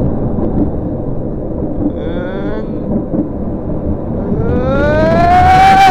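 Rumble of a roller coaster car running along its track with wind on the microphone. About four and a half seconds in, a rider starts a long yell that rises in pitch and is held.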